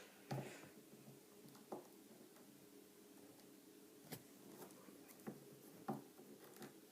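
Faint room tone with a low steady hum, broken by a handful of light plastic clicks and taps as a plastic action figure and its sword and blaster are handled and posed.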